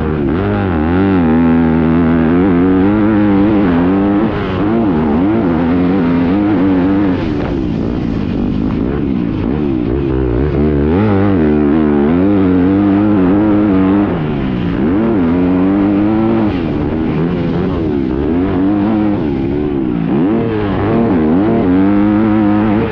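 2020 Yamaha YZ250F's four-stroke single-cylinder engine revving up and down as the dirt bike is ridden around a motocross track. The pitch climbs and falls again and again with throttle and gear changes, with brief throttle-offs about four and fourteen seconds in.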